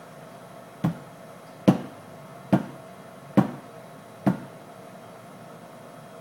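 A tall Collins glass knocked down on the bar top five times, about once a second, each a sharp knock with a short ring. This is a bartender tapping the fizz to knock air bubbles out of the egg-white foam.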